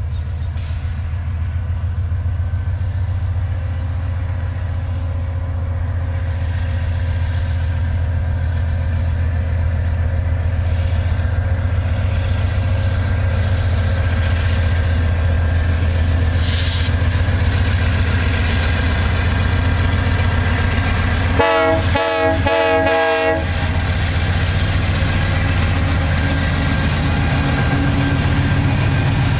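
Diesel-electric freight locomotives working under power as they approach and pass, a deep steady engine drone that slowly grows louder. About two-thirds of the way in, the locomotive air horn sounds several short blasts in quick succession.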